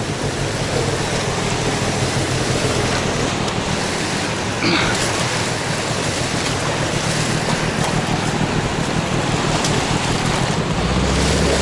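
Steady rush of river water over rocks, with a motor running low underneath.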